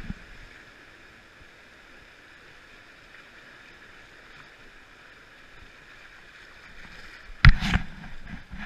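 River current rushing steadily past an inflatable raft. Near the end, a cluster of loud splashes and knocks as paddles dig into choppy water.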